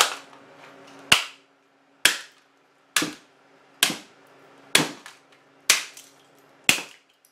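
A hammer smashing the burnt, melted remains of a plastic alarm clock on a concrete floor: eight sharp blows, about one a second.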